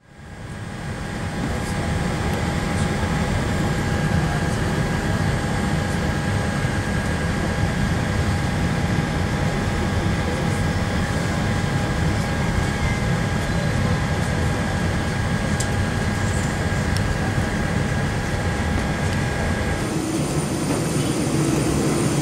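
Steady rumbling hum of airport gate machinery around a parked Boeing 787, with a steady whine in it, fading in at the start. About twenty seconds in it switches abruptly to a different hum from the jet bridge at the aircraft's cabin door.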